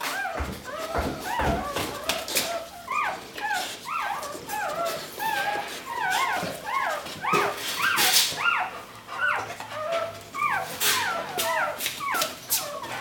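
Newborn pit bull puppies squeaking and crying: many short, high squeals that rise and fall, several a second and overlapping, with scattered clicks.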